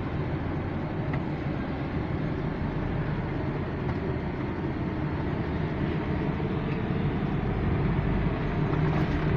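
Vehicle engines running steadily in a ferry's vehicle deck: a low rumble with a constant hum that grows slightly louder toward the end.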